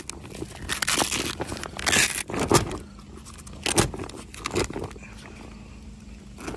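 Wet waterproof fabric of a rooftop cargo bag rustling and scraping as its flap is pulled back and opened, in four or five short bursts over the first five seconds, over a faint steady low hum.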